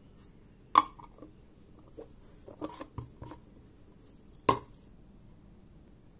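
Small objects being handled and set down on a work table: two sharp knocks, about a second in and again near the middle-to-end, with a run of lighter clicks and taps between them.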